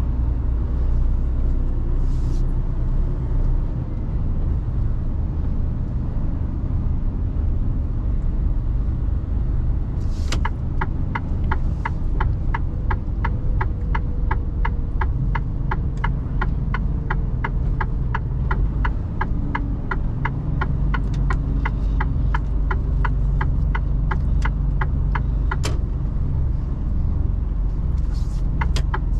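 Inside a Mercedes Actros truck cab, the engine and tyres rumble steadily at low speed. About a third of the way in, the turn-signal indicator starts ticking evenly at about three clicks a second. It stops after some fifteen seconds with a sharper click.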